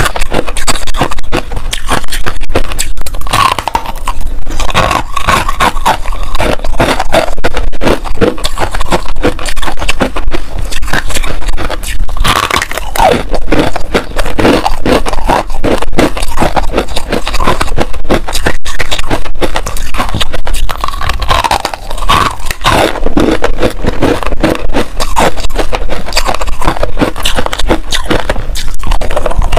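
Hard, frost-coated freezer ice being bitten and chewed close to a clip-on microphone: dense, irregular crunching and cracking that goes on almost without a break.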